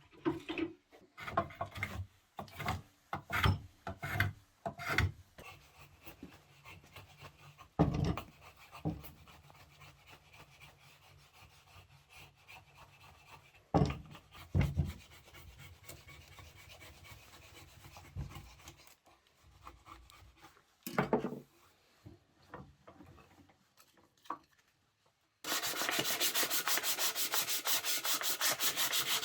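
Wood being handled and worked: scattered knocks and short rubbing strokes of wood on wood or on a surface. About 25 seconds in, sanding of wood starts suddenly and runs loud and even, with a fast, regular stroke.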